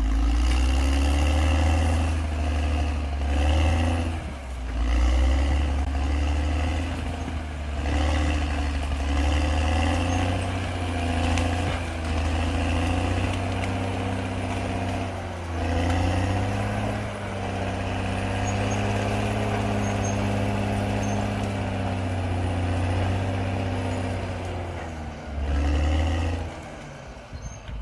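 Heavy diesel machine engine working under load, its pitch rising and falling again and again as it is throttled up and eases off.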